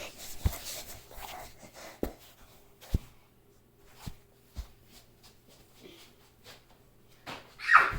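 Play-Doh being smashed by hand on a tabletop: about five dull thumps spaced a second or so apart, with soft handling and rustling between them.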